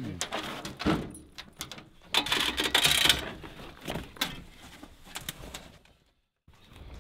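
A hound scrambling into an aluminium dog box, its claws scraping and knocking on the metal, with a louder scraping clatter about two seconds in. The sound cuts off suddenly near the end.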